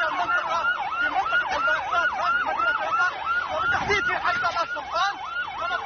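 Emergency vehicle siren in a fast yelp, sweeping up and down in pitch about four times a second.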